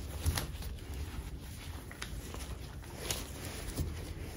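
Cloth rag rubbing and wiping over a machined aluminium motorcycle triple clamp: soft irregular scratchy strokes with a few light clicks.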